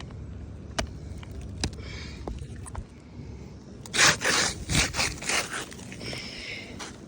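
Gritty scraping and rubbing against asphalt roof shingles: a few light clicks early, then a quick run of loud scrapes about four seconds in.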